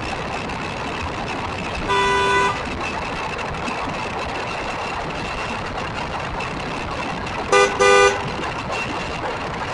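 A vehicle horn honks once for about half a second about two seconds in, then gives two short honks near the end. Beneath it runs the steady road and drive noise of a small RC buggy, with a thin steady whine.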